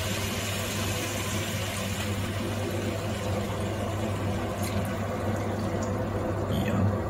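Steady hiss of chicken pieces cooking in a pot on a gas stove as soy sauce is poured over them, over a low steady hum; the hiss softens a little after about four and a half seconds.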